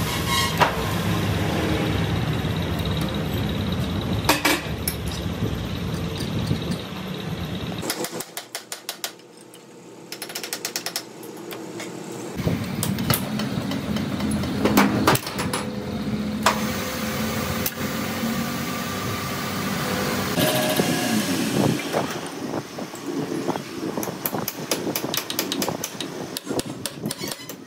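Metal lathe running with a truck axle flange spinning in its four-jaw chuck, going quiet about eight seconds in. After that come clicks and metal knocks as the flange is set and trued by hand in the stopped chuck.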